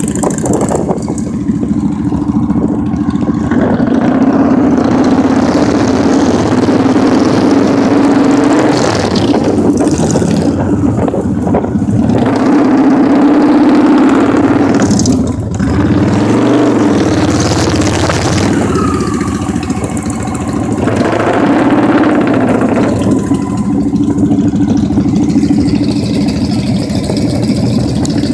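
Motorcycle engine running at low riding speed, with a steady low drone under a rush of wind noise; the engine pitch rises and falls about halfway through.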